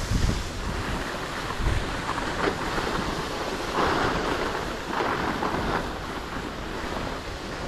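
Skis sliding and scraping over packed snow in a downhill run, with louder scraping surges about four and five seconds in, under wind buffeting the microphone.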